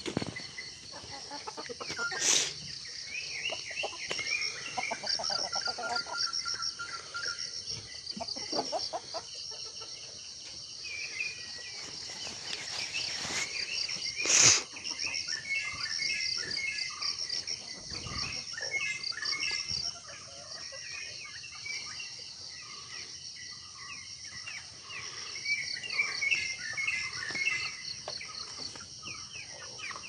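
Free-ranging chickens clucking and calling over a steady, high, pulsing chorus of insects. Two brief loud bangs come through, about two seconds in and again about halfway, the second the loudest sound here.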